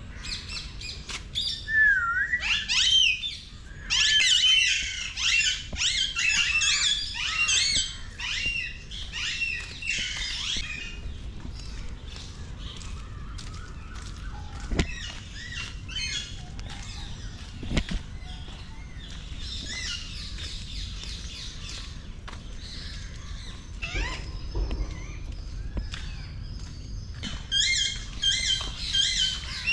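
Many birds chirping and calling at once, in dense bursts of quick whistled and squawking notes with quieter stretches between. A few sharp knocks sound in the middle.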